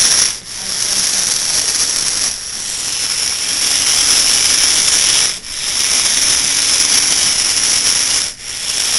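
Small battery-powered DC gear motors of a hobby robot whirring as it drives, with a high, hissy whine; the motors cut out briefly four times as the robot stops and changes direction.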